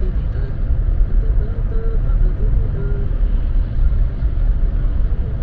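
Steady low road and engine rumble of a car heard from inside the cabin while it is driven along the road.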